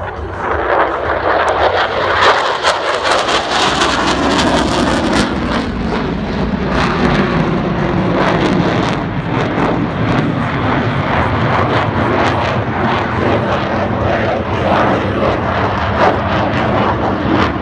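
F-16 fighter jet engine running loud as the jet flies past and climbs away, a harsh crackling roar. Its pitch falls a few seconds in as the jet passes.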